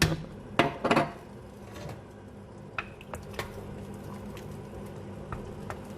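Three sharp knocks of kitchen utensils against a pot in the first second, then a pot of homemade pineapple syrup simmering on the stove with a faint crackle and occasional small pops over a steady low hum, as honey goes in.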